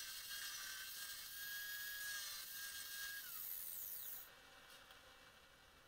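Handheld angle grinder with a flap wheel grinding the steel of an old hatchet head, a high hissing whine. The whine drops in pitch a little after three seconds in, and the sound cuts off after about four seconds.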